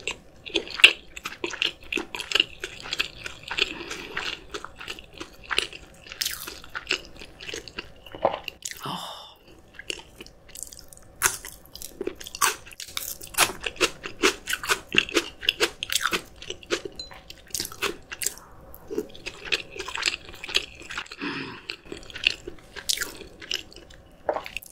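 A person chewing and biting food close to the microphone, with many irregular crunches and wet mouth sounds.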